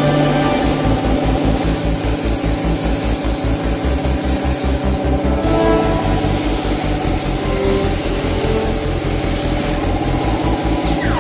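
Background music with a steady beat, over the steady hiss of a compressed-air spray gun applying paint; the hiss breaks off for a moment about five seconds in.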